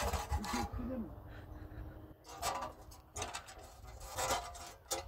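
Uneven rough scraping strokes, about five of them in the second half, after short calling at the start.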